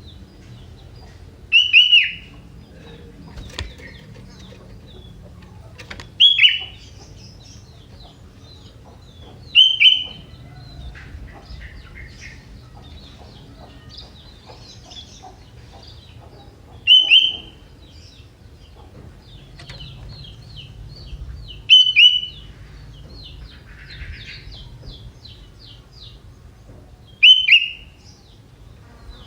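Young sooty-headed bulbul calling: six loud, short calls that each sweep quickly down in pitch, a few seconds apart, with fainter twittering between them.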